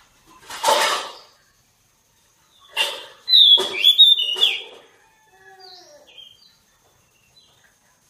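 A caged magpie-robin singing. It gives a harsh rasp about half a second in, then a loud phrase of whistled, sliding notes through the middle, trailing off into softer warbled notes.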